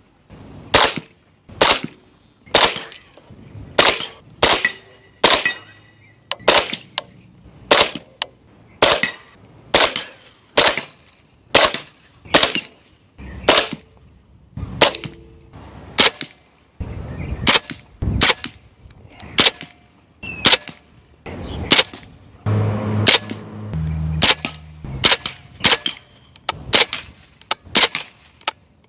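Suppressed subsonic gunfire: a long, steady string of single shots in quick succession, about one to two a second, each a sharp crack.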